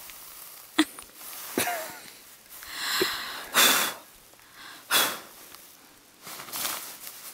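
A woman blowing short puffs of breath at a dandelion seed head, close to the microphone: about four puffs in the latter part, with a couple of brief vocal sounds before them.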